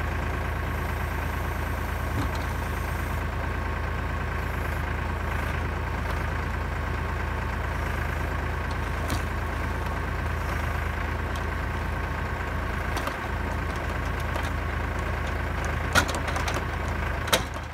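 Kioti tractor's diesel engine running steadily at a constant speed while it powers the hydraulic log loader. Two sharp knocks sound near the end.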